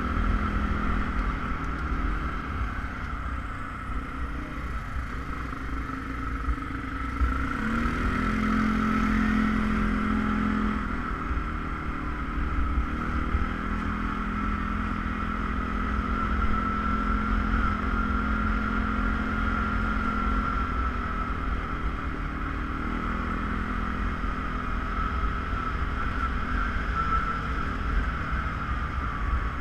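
ATV engine running steadily under way, with a steady high whine over the engine note; the revs rise and the engine grows louder about a quarter of the way in, then settle.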